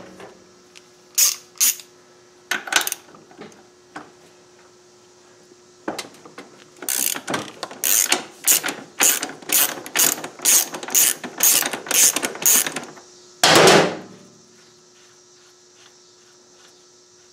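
Socket ratchet clicking as it spins the motorcycle's 27 mm rear axle nut loose: a few single clicks, then a steady run of ratchet strokes at about two a second. A louder metallic clatter follows near the end.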